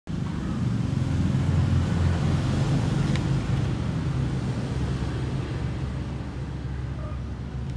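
Steady low rumble of road traffic, a vehicle engine running nearby.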